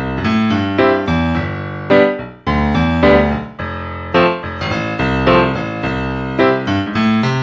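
Background music: a piano or electric-piano melody with separate struck notes over sustained chords.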